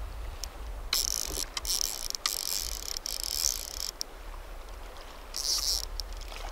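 Fly reel's click-and-pawl drag buzzing in three short spurts, with single clicks between, as line runs off and is reeled back during the fight with a hooked half-pounder steelhead. A steady low rush of river water runs underneath.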